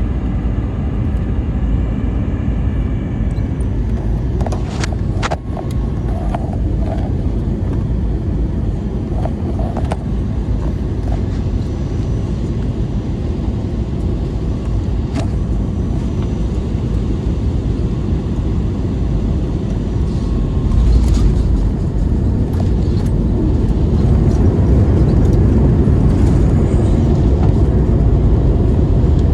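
Airbus A321 cabin noise: a steady low rumble of engines and airflow, with a few sharp knocks, growing louder about two-thirds of the way through.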